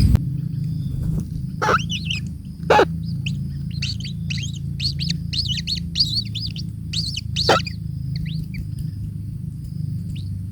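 A bird calling in rapid runs of high chirps, with three louder, sharper calls among them, over a steady faint high whine and a low rumble.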